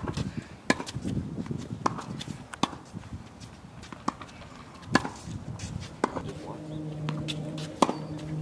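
Tennis ball struck by a racket and bouncing on a hard court: a string of sharp pops roughly a second apart, as in a rally. A steady low hum joins about six seconds in.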